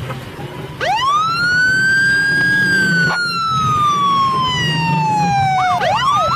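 Police water cannon truck's electronic siren. About a second in it rises into a long wail that slowly falls, then near the end it switches to a fast up-and-down yelp.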